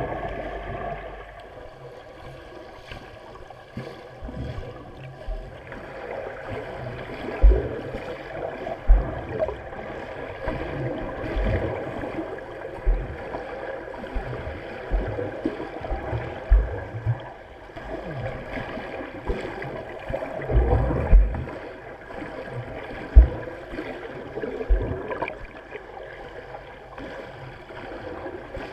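Water heard from underwater in a swimming pool as a swimmer does front crawl: a muffled rush of churning water and bubbles, with irregular low thumps from the strokes and kicks.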